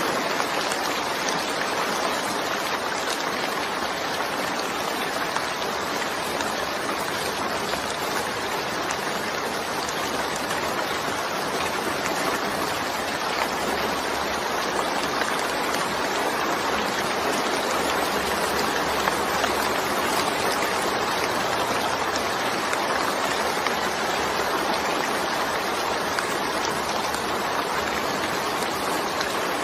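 Steady rain falling, an even hiss of water with no breaks or changes.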